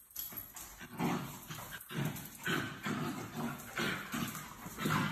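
Dogs play-wrestling, giving a string of short, rough growls and grunts, about two a second.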